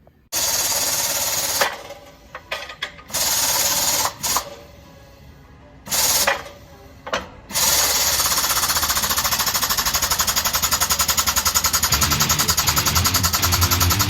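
Impact wrench hammering on a bolt with a fast, dense rattle: several short bursts, then running steadily from about halfway through.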